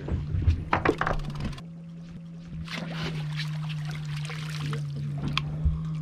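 Steady low hum on a fishing boat, with a few sharp knocks in the first second and a half and a stretch of splashing, running water in the middle.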